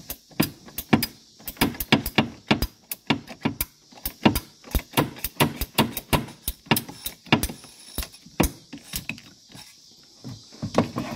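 Hand-squeezed pipe cutter working its blade through a clear braided vinyl hose: a run of sharp clicks, about two to three a second, that stops as the hose is cut through.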